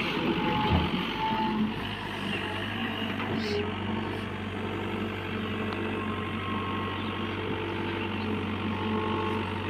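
Heavy diesel engine of a JCB backhoe loader running steadily, with short beeping tones from a reversing alarm sounding now and then.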